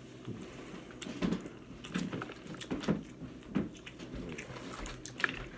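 Close-up eating sounds from a seafood meal: chewing and mouth smacks, with irregular small clicks and crackles as food and shells are handled.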